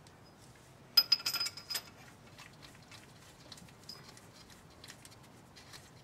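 A quick run of sharp metallic clinks with a ringing note about a second in, then only faint light ticks: a steel Allen (hex) key knocking against the cylinder-head studs as they are snugged.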